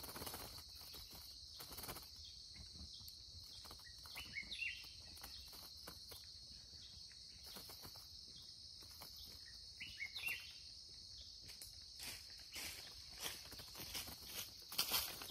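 High, steady insect drone over a forest, with scattered light taps and flutters from a bulbul beating its wings against a hanging wire trap cage. Two short bird calls come in, about four seconds in and again about ten seconds in.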